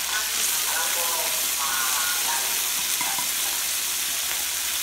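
Hida beef sizzling steadily on a tabletop yakiniku grill: an even, crackling hiss.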